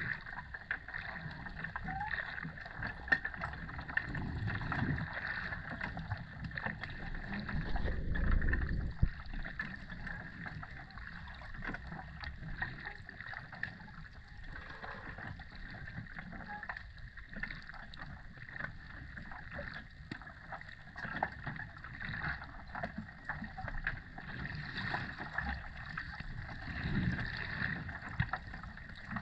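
Underwater ambient sound picked up by the camera: a muffled, steady water rush dotted with many small clicks and crackles, with a few deeper swells of water movement.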